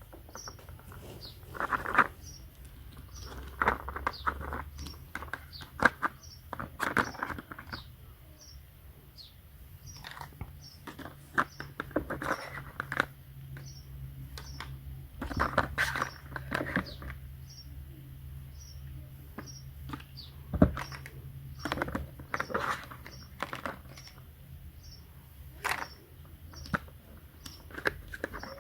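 Irregular clicks, taps and short scrapes of small objects being handled, over a steady low hum, with a faint short high chirp repeating a little more than once a second.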